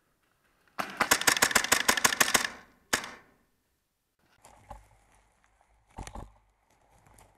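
Full-auto burst from an HPA airsoft M4 with a PolarStar Jack engine: about a dozen sharp shots in under two seconds, then one single shot. Two dull thumps follow later.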